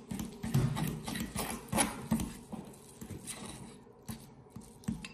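A metal fork beating a thick paste of egg yolks and grated cheese in a ceramic bowl: quick clicks and taps of the fork against the bowl, loudest in the first two seconds, then softer and sparser.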